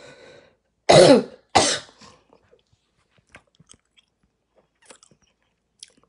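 A woman with a hoarse throat coughing twice in quick succession about a second in, followed by a few faint ticks.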